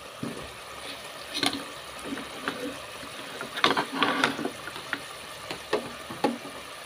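Oily curry sizzling and bubbling in an aluminium pot, at the stage where its oil has begun to separate, with wet splashes and knocks as potato chunks go in and a wooden spatula works among them. The loudest cluster of splashes and knocks comes about halfway through.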